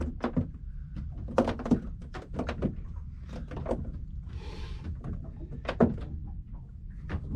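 Irregular knocks and clicks of gear being handled on a fishing boat, over a steady low rumble, with a short hiss about four seconds in.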